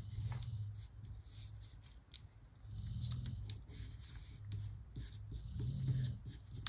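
Paper and sticker handling at a desk: soft rustles and small scattered clicks and ticks as planner stickers are pulled up and pressed down, over a faint low hum.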